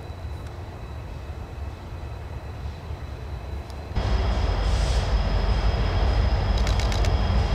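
Loaded coal train approaching, led by an EMD SD70MAC diesel-electric locomotive whose two-stroke V16 engine gives a steady low rumble. About four seconds in, the rumble becomes suddenly much louder and closer, with a high steady whine on top.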